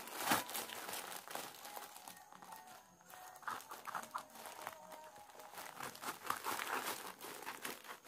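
Plastic courier mailer bag crinkling and rustling in the hands as it is handled and pulled open, in an irregular run of crackles.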